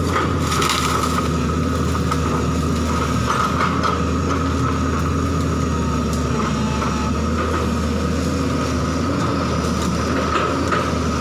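JCB crawler excavator's diesel engine running steadily under load, with a steady high whine over it, as the bucket tears through brush; branches crack and snap a few times.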